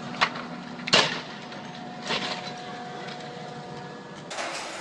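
Three sharp knocks or bangs, the second about a second in being the loudest, over a steady low hum.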